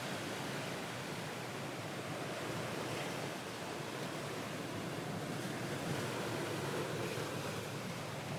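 Ocean waves washing onto a shore: a soft, steady surf with gentle swells, added as a relaxation background track.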